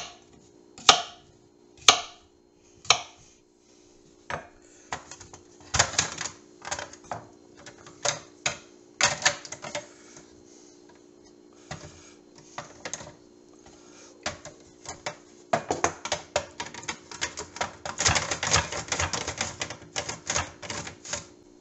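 Cucumber being cut and sliced: four sharp knocks about a second apart as it is cut into pieces, then the quick clattering strokes of the pieces being pushed across a plastic mandoline slicer's blade. The strokes come faster and louder near the end.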